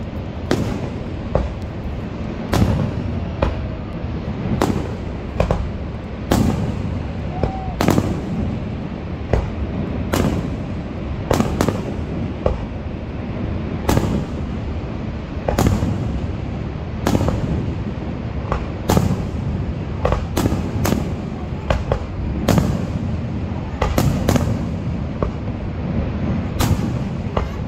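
Aerial fireworks shells bursting overhead: an irregular series of sharp bangs, roughly one a second, over a steady low background noise.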